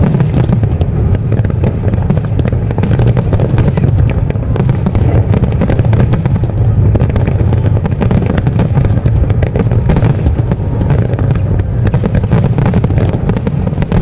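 Aerial firework shells bursting in a continuous, rapid barrage: many sharp cracks and crackles a second over a heavy low rumble, with no let-up.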